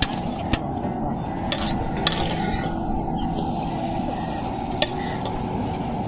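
A metal ladle stirring food in a cooking pot, with several sharp clinks against the vessel, over a steady sizzling and rushing noise from the cooking.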